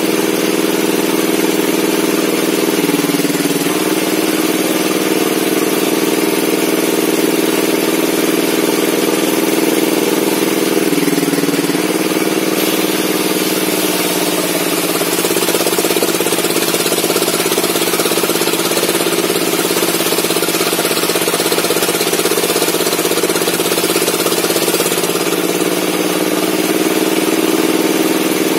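Bench circular saw (table saw) running while wood logs are cut on it. The steady hum dips in pitch several times as the saw is loaded, over a constant high hiss.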